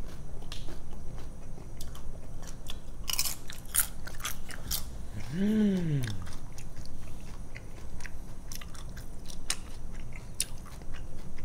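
Close-up chewing and crunching of blue corn tortilla chips topped with queso, many small crisp crunches throughout. About five and a half seconds in, a short closed-mouth hum of enjoyment rises and falls in pitch.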